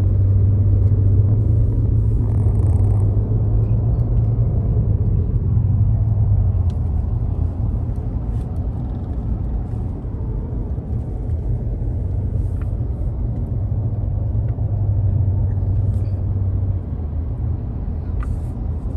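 Road and engine rumble inside a moving car's cabin: a steady low drone, strongest for the first few seconds and again briefly near the end.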